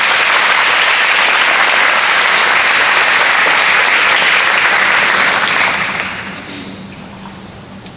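Audience of schoolgirls applauding in a large hall, steady clapping that dies away about six seconds in.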